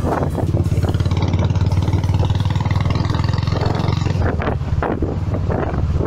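Motorcycle engine running steadily while riding, a fast even pulsing heard from on the bike, with wind gusting on the microphone in the second half.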